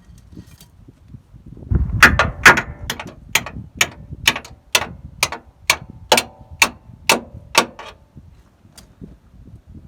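Hammer blows on metal: about a dozen sharp strikes, roughly two a second, each with a short metallic ring, starting about two seconds in and stopping near the end.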